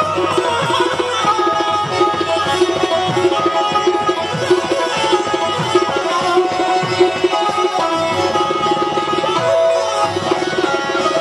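Live instrumental passage of South Asian music: tabla drumming in a steady rhythm under a sustained, held melody instrument.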